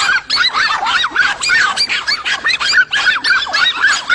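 Several dogs barking and yapping rapidly at a cornered lizard: high, overlapping barks, about five a second.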